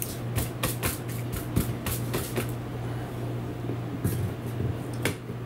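Crinkling and clicking of a thin disposable aluminium foil pan as gloved hands press seasoning onto a raw chuck roast, for the first two and a half seconds, then a couple of single clicks, over a steady low hum.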